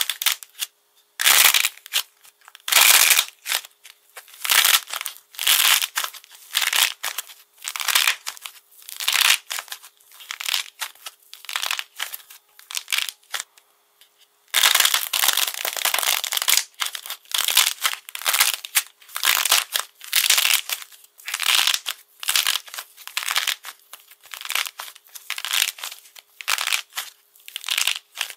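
Hardened coating on blue clay cracking and crunching as hands squeeze and pull the pieces apart, exposing the soft foam clay inside. The crisp crackles come in repeated bursts about once a second, with a short gap about halfway, after which they come thicker.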